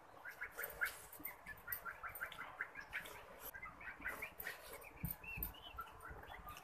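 Small birds chirping in quick, repeated short notes, with scattered soft clicks from chewing and eating by hand.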